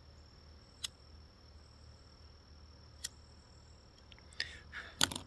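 Crickets trilling steadily under a low hum, with a few sharp clicks: one about a second in, another about three seconds in, and a louder cluster near the end.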